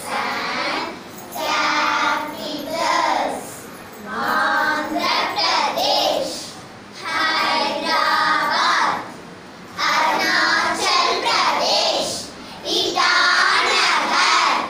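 A group of young girls singing together in unison, in short phrases with brief breaks between them.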